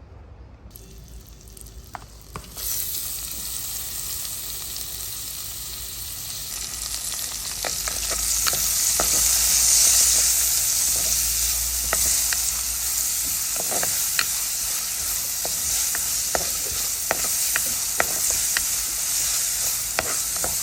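Spices frying in hot oil in a clay pot: the sizzle starts about two and a half seconds in and grows louder. From about halfway on, a spoon clicks regularly against the pot as the spices are stirred.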